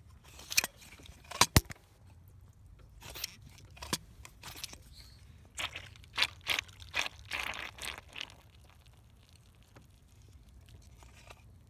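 Scattered clicks, crunches and rustles of a phone being handled and footsteps while moving around a car. The louder knocks come about a second and a half in, and there is a cluster of them in the middle.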